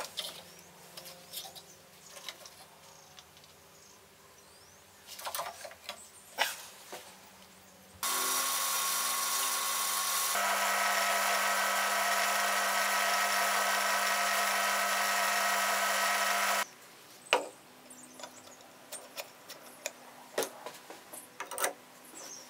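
A bench pillar drill runs for about eight seconds, drilling into a metal disc on the end of a cut chain link, and cuts off abruptly. Before and after it, light clicks and knocks of tools being handled on the bench.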